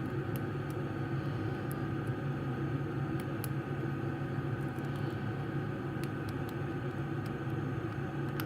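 Steady low hum of background noise, with faint, scattered small clicks of a hook pick and tension wrench working the pins inside a small Assa pin-tumbler padlock.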